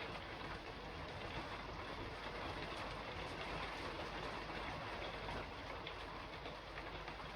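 Steady rain falling on a roof: an even hiss of drops with many small ticks, holding at a constant level.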